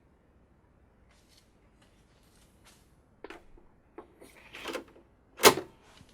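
Handling of a floppy drive mechanism: a few small clicks, a short sliding rasp, then one sharp mechanical clack near the end.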